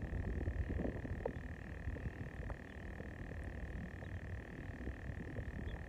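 A steady, even chorus of frogs calling, with a low crackling rumble and scattered small clicks close to the microphone.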